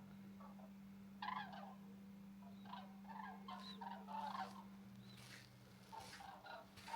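Faint calls from a flock of migrating birds flying overhead in a V formation: scattered short calls starting about a second in, over a steady low hum.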